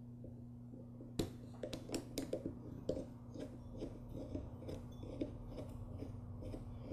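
Light irregular metal clicks and taps of small hand tools working the main jet out of a lawnmower carburetor body, a few a second, over a faint steady low hum.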